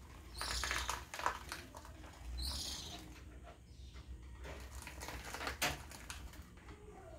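Gouldian finches bathing in a shallow bowl of water: two short bursts of splashing and wing-fluttering, about half a second and two and a half seconds in, with scattered small taps and drips between.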